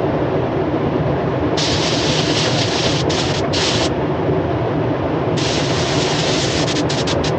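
Spray gun hissing in bursts as its trigger is pulled and released, spraying the first coat on a van panel, over the steady roar of spray booth extraction fans.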